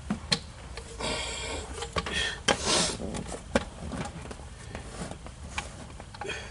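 Scattered light clicks and knocks with short stretches of rustling: parts and tools being handled by hand while working under the hood.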